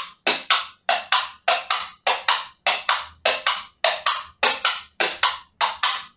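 Plastic coconut-shell halves clopped together in a steady galloping rhythm: about ten pairs of hollow knocks, imitating a running horse's hooves.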